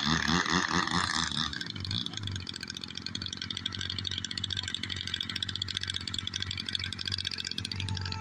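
A small electric motor of a foam RC model airplane buzzing as it flies fast overhead. It is loudest for about the first second and a half, then carries on steadily and more distant.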